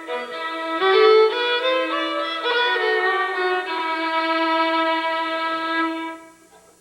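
A fiddle playing a melody that ends on a long held low note, dying away about six seconds in.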